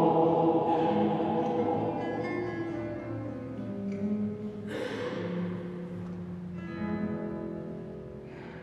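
Church choir singing slow, sustained notes, gradually fading out toward the end.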